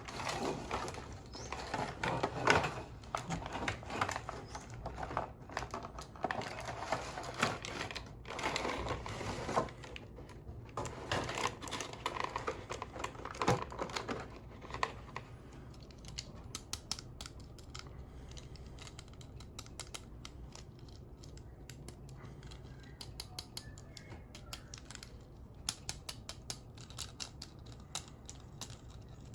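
Toy packaging being handled and opened: plastic and cardboard rustling and crinkling in bursts, then a run of small scattered clicks and ticks from about halfway on.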